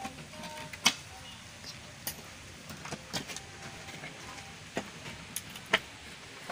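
Steady background noise broken by about six sharp clicks and knocks at irregular intervals, two of them much louder than the rest.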